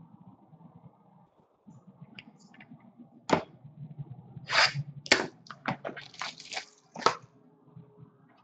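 Crinkling and crackling of wrapping and cardboard as a sealed trading-card box is opened. A run of sharp crackles and snaps starts about three seconds in and ends shortly before the end.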